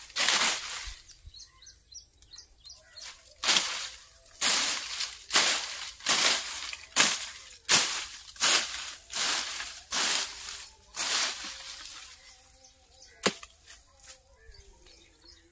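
A machete slashing through undergrowth and dry leaves in repeated swishing strokes, about one a second, with a pause after the first stroke. One sharp chop comes near the end.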